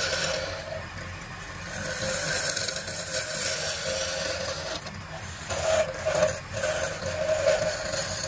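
Wood lathe running with a steady hum while a hand-held turning chisel scrapes the spinning wooden vase; the scraping swells and eases, with short breaks about five and six and a half seconds in.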